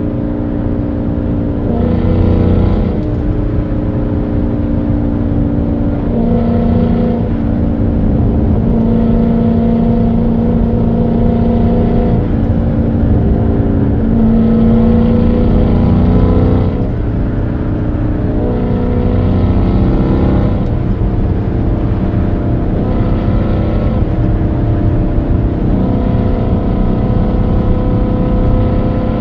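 Dodge Charger Scat Pack's 6.4-litre (392) HEMI V8 exhaust, heard through an exhaust microphone while cruising at highway speed. It runs as a steady drone that swells and eases again several times as the throttle is fed in and backed off.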